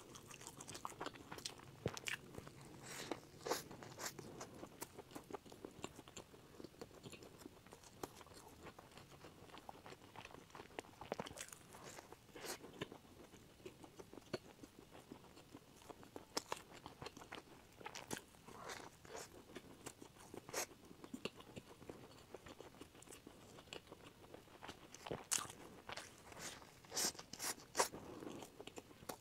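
Close-miked eating of a crusty filled bread bun: crisp crunches from bites into the crust, coming in clusters, with softer chewing between.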